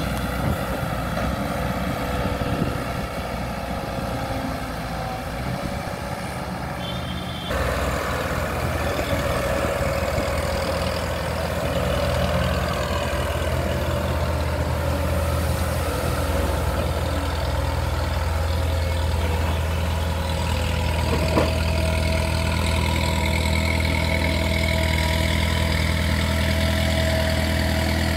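Heavy diesel engine running steadily with a low, even drone; the sound changes abruptly about seven seconds in and then holds steady.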